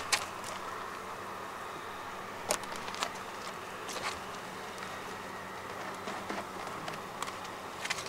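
Honeybees buzzing around an opened hive, a steady hum, with a few light knocks of the wooden hive boxes being set in place.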